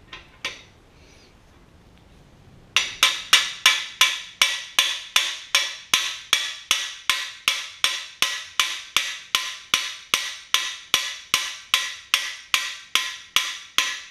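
Hammer blows on the driver bar of a cam bearing installation tool, driving a new cam bearing into the bore of a Ford FE V8 block. A couple of light taps, then, a few seconds in, a steady run of sharp, ringing metal strikes about three a second.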